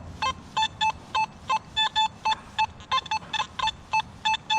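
Nokta Simplex+ metal detector beeping on a target, a short tone about three times a second as the coil passes back and forth over it; a signal the detectorist reads as a deep target.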